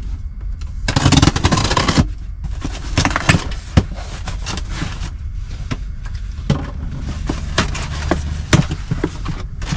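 A large cardboard box being opened by hand: a loud scraping burst about a second in, then scrapes, rustles and knocks of cardboard and packing, over a low steady hum.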